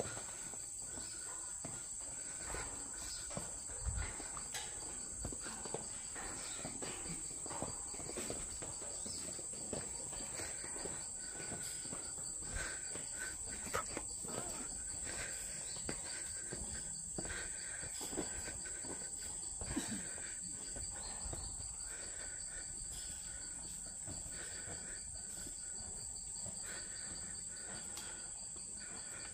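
Steady high-pitched chorus of insects, with scattered short knocks and thumps through it.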